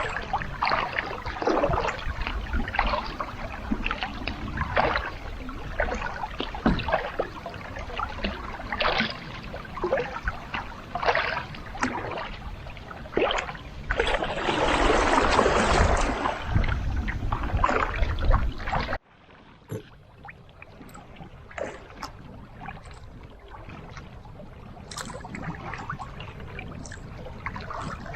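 Pack canoe being paddled: irregular paddle strokes splashing and dripping in the water, with a louder rush of water noise about halfway through. About two-thirds of the way in, the sound drops abruptly to a much quieter stretch with only faint drips and light knocks.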